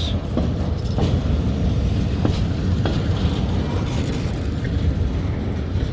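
EMD GP38 diesel locomotive's engine running with a steady low rumble as the train moves slowly, with a few faint clicks.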